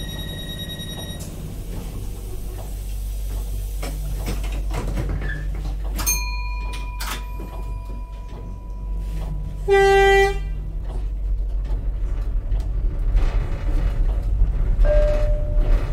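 Tyne and Wear Metrocar (Class 994) standing at a station and setting off. A steady beeping tone stops about a second in, and a few knocks and short tones come around six seconds. A short, loud horn toot about ten seconds in is the loudest sound, over the train's steady low rumble.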